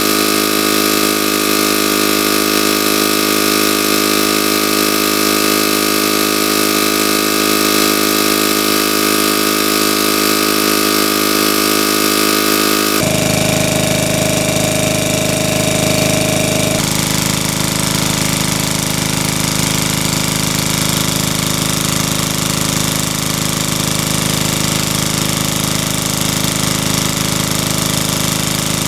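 Engine-driven water pump running steadily while it drains a pond, with water gushing from its discharge hose. The tone of the running engine shifts abruptly about halfway through and again a few seconds later.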